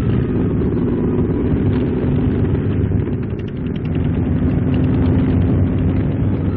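Steady low rumble of military trucks moving in a column and towing field guns.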